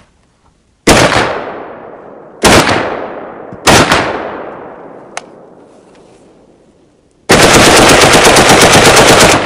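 StG 44-pattern select-fire rifle: three single shots about a second and a half apart, each trailing off in a long echo, a small click, then a rapid fully automatic burst of about two seconds near the end.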